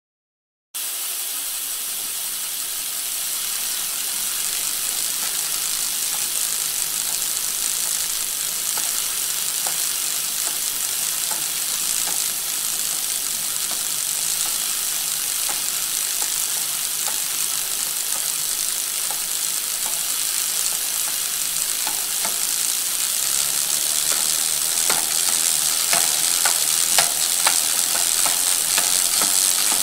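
Several bicycles being ridden: a steady hiss of tyres and freewheels, starting about a second in. Small clicks and rattles grow more frequent and a little louder toward the end.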